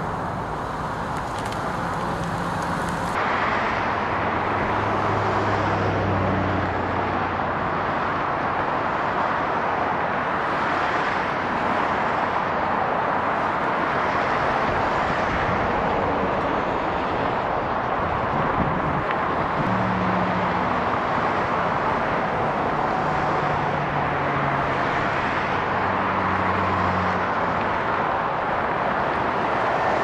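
Road traffic: cars and SUVs driving past on a multi-lane boulevard, a steady rush of tyre and engine noise. The low hum of individual vehicles comes and goes as they pass, and the noise grows a little louder about three seconds in.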